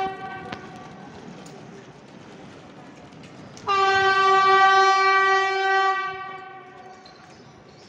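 Electric locomotive's horn: the end of a short blast right at the start, then one long steady blast of about two and a half seconds on a single note, which dies away.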